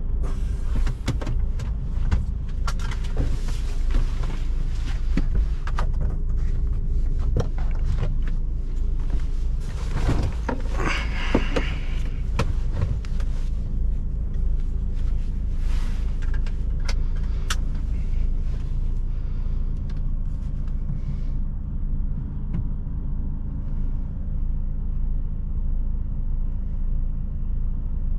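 DAF truck on the move: its diesel engine running steadily under a low rumble of road noise, with scattered clicks and rattles and a louder rushing noise about ten seconds in.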